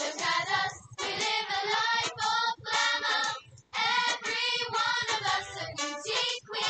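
Recorded show song playing, with sung vocal lines that pause briefly a little past halfway.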